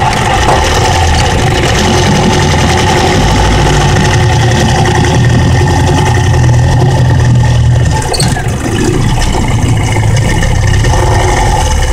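Boat's outboard motor running steadily, with a brief dip in level about eight seconds in.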